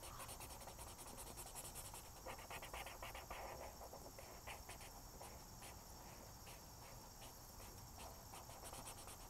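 Felt-tip marker rubbing on paper in quick back-and-forth strokes, a faint rapid scratching as a small shape is outlined and coloured in.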